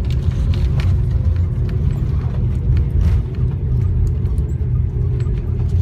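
Airliner cabin noise on the ground after touchdown: a loud, steady low rumble from the wheels and engines with a steady hum, and a few light rattles.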